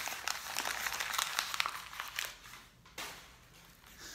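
Crinkling and rustling of a folded paper slip being unfolded and handled close to the microphone, a dense crackle that dies down about three seconds in, leaving softer rustles.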